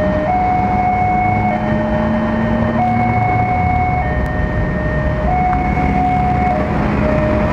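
Railway level-crossing warning alarm sounding a two-tone electronic signal that alternates between a lower and a higher pitch about every second and a quarter, the signal that a train is approaching and the crossing is closed. A low rumble runs underneath, from a train passing close by.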